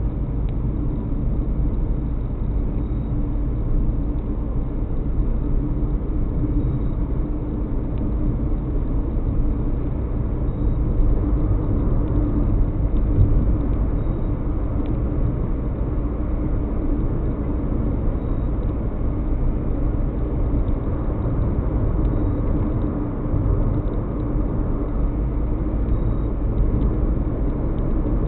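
A car being driven at a steady pace, heard from inside the car: an even, low rumble of engine and tyre noise with no changes.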